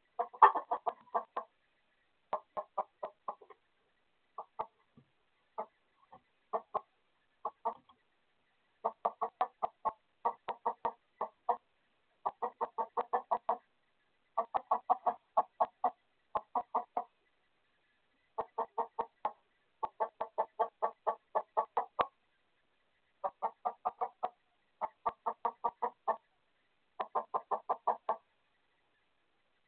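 Chickens clucking in rapid runs of several clucks, pausing between runs and repeating throughout: agitated alarm clucking with a skunk inside the coop.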